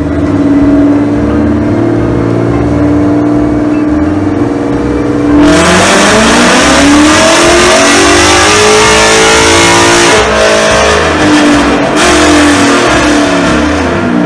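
A car engine idling, then revved once about five seconds in. It gets suddenly louder, the pitch climbs and then sinks back over several seconds, and it settles to idle again.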